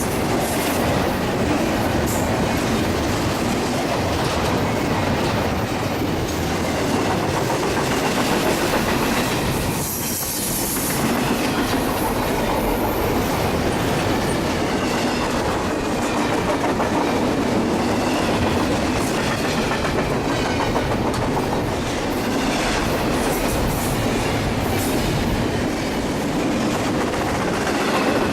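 A train rolling steadily past on the rails, with a brief high hiss about ten seconds in.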